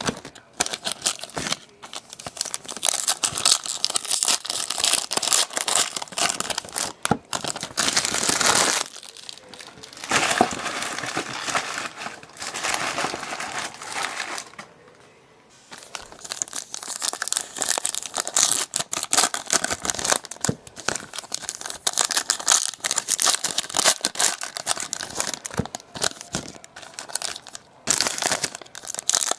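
Trading card pack wrappers crinkling and tearing as packs are opened and handled, with two short pauses about a third and halfway through.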